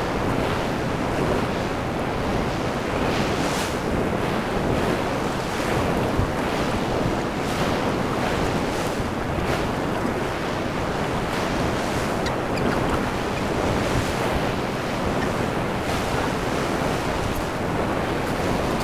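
Ocean surf breaking and washing up a flat sand beach as a steady wash with no distinct crashes, with wind noise on the microphone.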